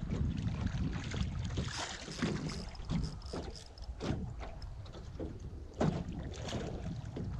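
Wind buffeting the microphone over a steady low rumble, with scattered knocks and clicks from gear being handled in a small boat.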